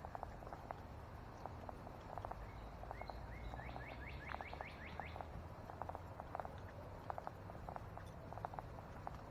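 Footsteps on a woodland trail, as light irregular clicks, under a steady low outdoor rumble. A small bird sings a quick run of about a dozen short repeated notes, starting about two and a half seconds in and lasting a couple of seconds.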